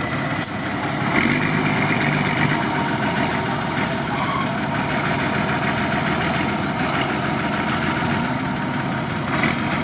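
Mercedes-Benz Unimog's diesel engine running steadily at low speed as the truck wades through a river, with water washing around its wheels. A single sharp click about half a second in.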